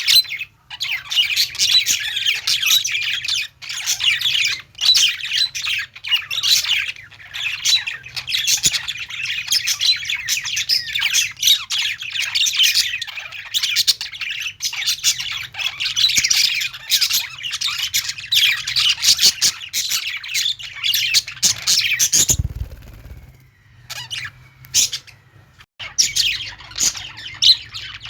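A large group of small caged parrots, budgerigars and lovebirds, chirping and chattering continuously with many overlapping squawks and tweets. About three quarters of the way through, the chatter drops away for a second or so, with a low thud, then starts again.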